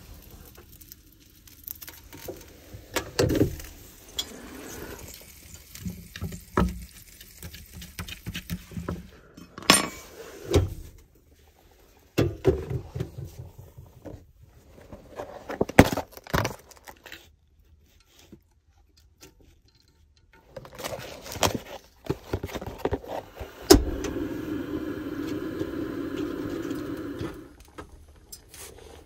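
Cooking at a portable gas stove: pan, lid, utensils and containers clinking, knocking and clattering as they are handled, with a steady rushing noise lasting a few seconds near the end.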